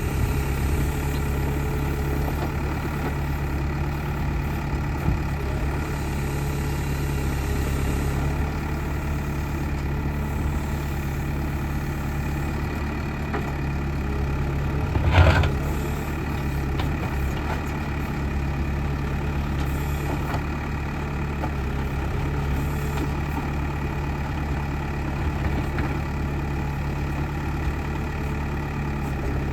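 Diesel engine of a backhoe loader running steadily at constant speed, with one short knock about halfway through.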